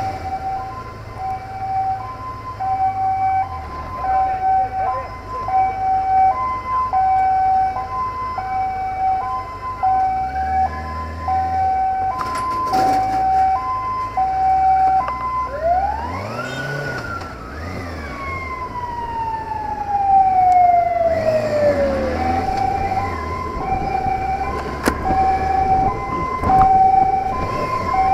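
Emergency two-tone siren alternating between a high and a low note about every three-quarters of a second, with a motorcycle engine running underneath. A little past halfway the siren switches to one tone that rises sharply and then glides slowly down for several seconds, and then the two-tone pattern starts again.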